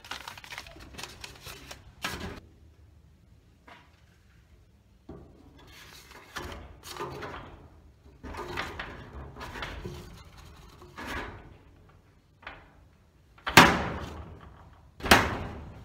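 Paper mail rustling and scraping as it is pushed through a metal letter plate into a metal letterbox. Near the end come two loud, sharp clacks of the letterbox hardware snapping shut, about a second and a half apart.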